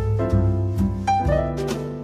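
Instrumental background music: short notes that start sharply and die away, over a low bass.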